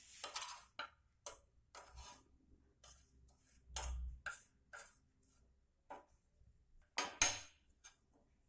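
A utensil tapping and scraping in a pan in irregular light clicks as charred leaves are crushed into powder while they roast. There is a dull thump about four seconds in and two louder clinks near the end.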